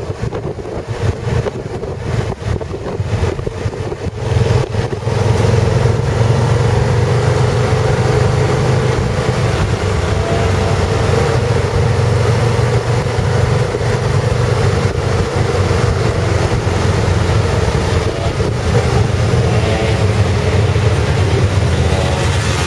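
Motorcycle engine running steadily at riding speed, heard from the rider's seat, getting louder about five seconds in. Wind buffets the microphone during the first few seconds.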